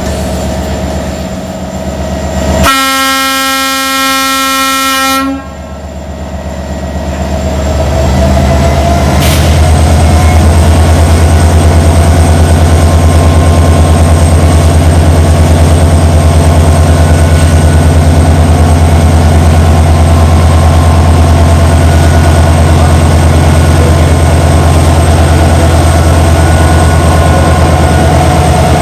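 Arriving locomotive sounding one horn blast, about two and a half seconds long, about three seconds in. Then the locomotive's heavy, steady running drone swells over a few seconds and stays loud as it draws close, with a faint thin high whine above it.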